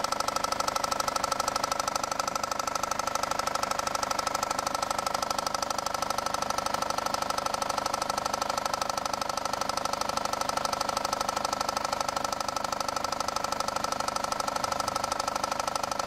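Engine running with a rapid, steady deep knock from the bottom front of the engine, over a steady whine. The knock comes from a failed crankshaft pulley/harmonic balancer, whose loose centre rattles inside it, and it is easily mistaken for rod knock.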